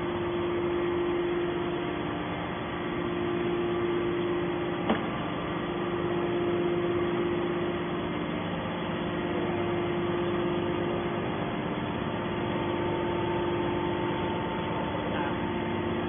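Hydraulic scrap metal baler's power unit (electric motor and hydraulic pump) running steadily with an even hum and a constant whine, the machine idling between pressing cycles. A single short click sounds about five seconds in.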